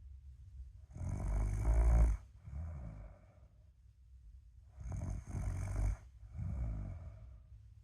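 A person snoring in their sleep: two snores about four seconds apart, each followed by a softer, shorter breath sound.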